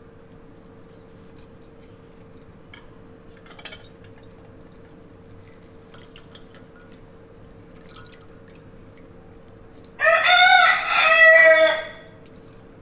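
Lemon juice dripping into a steel bowl of liquid, with small plastic clicks from a hand-press lemon squeezer being worked. Near the end a rooster crows loudly for about two seconds.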